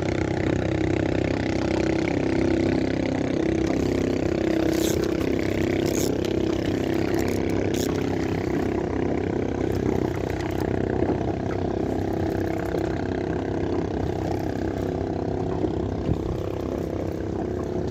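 Boat engine running steadily at an even speed, with a few light clicks about five to eight seconds in.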